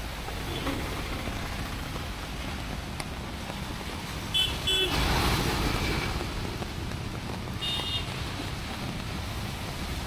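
Rainy street traffic: two quick high-pitched vehicle horn toots about four and a half seconds in, a vehicle passing close just after, and another short horn toot near the eighth second, over a steady hiss of rain and traffic.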